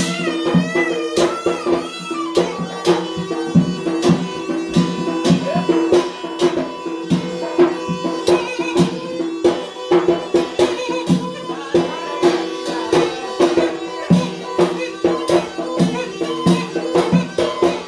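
Yemeni mizmar, a double reed pipe, playing a folk dance tune over a steady beat on a small hand-held metal drum.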